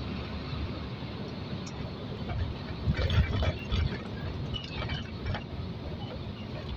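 Hino truck's diesel engine running and road noise heard from inside the cab while driving, with a cluster of light clicks and rattles about halfway through.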